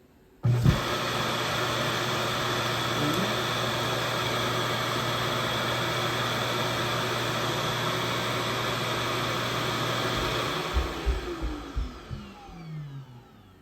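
Suction motor of an Ecovacs DEEBOT X1 OMNI robot vacuum system starting suddenly and running steadily, with a hum and a rush of air, for about ten seconds. It then spins down, falling in pitch with a few thumps.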